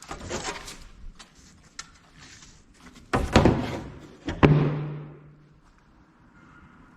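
A few sharp knocks and clatters, then two heavy thuds about three and four and a half seconds in; the second leaves a low ringing tone for about a second before fading.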